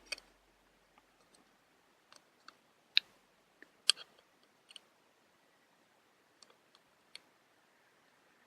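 Scattered light clicks and taps of small smartphone parts and tools being handled during reassembly, the two sharpest about three and four seconds in.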